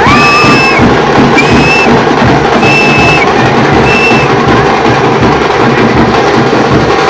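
Loud festival drumming, rapid and dense, with four short high whistle blasts in the first four seconds.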